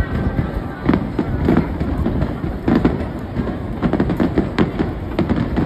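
Fireworks display: a rapid, irregular string of bangs and crackles from shells bursting, several a second, over a low rumble.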